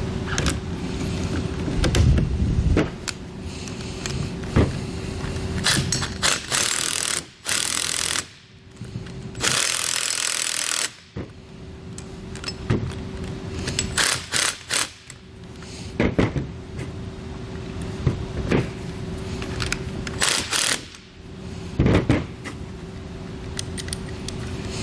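Cordless power tool with a 19 mm socket running a nut down on a bolt of a steel suspension bracket in several short bursts, the longest about seven and ten seconds in. Sharp metallic clicks and knocks of the parts and hand wrench come between the bursts.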